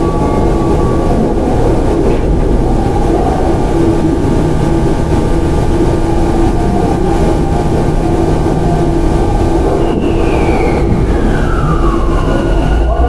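Tokyu 9000 series electric train with an early Hitachi GTO-VVVF inverter, heard from inside the car: steady rumble of wheels on rail with motor hum. About ten seconds in, the inverter's whine slides down in pitch in two falling tones, a sign of the train slowing under electric braking.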